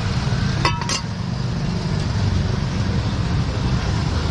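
Steady low rumble of road traffic on a busy street, with two short sharp clicks close together under a second in.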